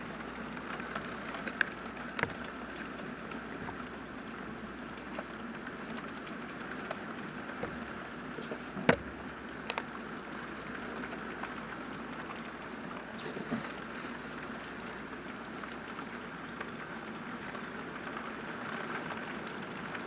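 Steady hiss of rain falling, with a few sharp clicks, the loudest about nine seconds in.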